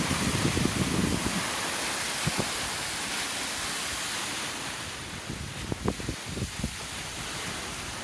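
Water rushing steadily over the stepped overflow weir of a reservoir, easing off somewhat about halfway through, with gusts of wind buffeting the microphone.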